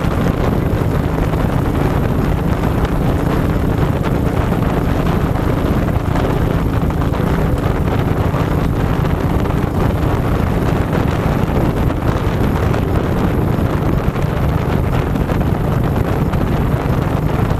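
ATV engine running steadily while the quad rides along a dirt trail, heard close from a camera mounted on the machine, with wind noise on the microphone.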